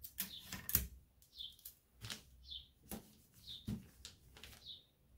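Hands rustling and tapping on butcher paper as it is smoothed and pressed flat, with a few sharp clicks that are the loudest sounds. Behind it, a bird gives a short, high chirp that falls in pitch, about once a second.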